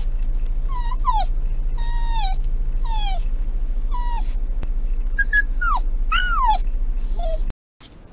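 Shiba Inu whining repeatedly, high whines that fall in pitch, about one a second, some in quick pairs, over a steady low hum inside the car. The sound cuts off suddenly near the end.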